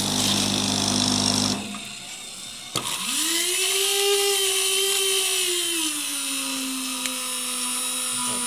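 Frappé machine's electric mixer motor starting up about three seconds in with a rising whine, then running steadily as it whips the coffee; its pitch drops and settles lower about halfway through. Before it, a short steady machine hum with hiss stops about a second and a half in.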